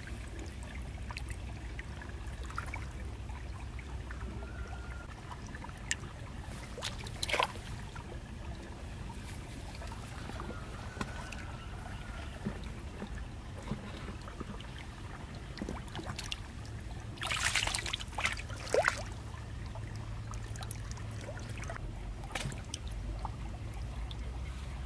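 Shallow stream water trickling steadily, under a low rumble. A few short sharp noises break in, the loudest a cluster about two-thirds of the way through.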